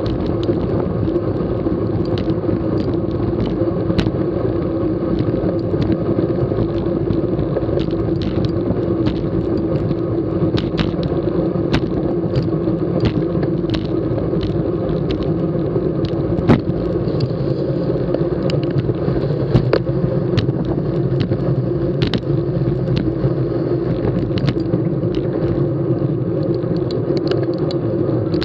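Road bikes riding at speed in a racing bunch: a steady rumble of tyres on the road and wind on the camera, with scattered sharp clicks and rattles and a louder knock about sixteen seconds in.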